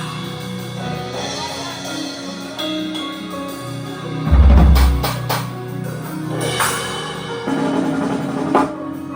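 Live band music at a sound check: held bass and keyboard notes with drum hits and several cymbal crashes, and one heavy low boom about four and a half seconds in.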